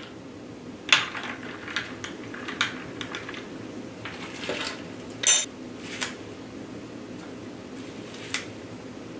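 A metal spoon stirring ice cubes in a glass mason jar of iced tea, making scattered clinks of ice against glass. The loudest is a sharp ringing clink about five seconds in.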